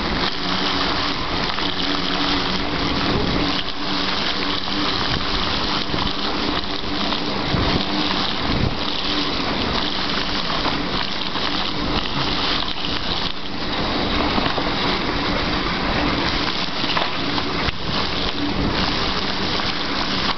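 Mountain bike tyres rolling over a wet, muddy trail, a steady rushing and splashing noise with a few brief knocks from the bike.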